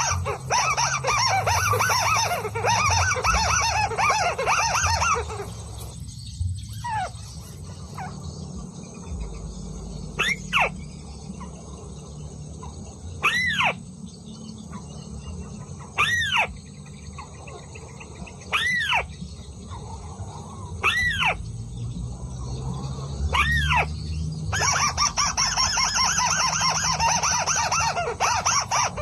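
Bird calls: a loud, dense chattering. After about five seconds it gives way to a run of single rising-and-falling whistled notes about every two and a half seconds. The chattering starts again near the end.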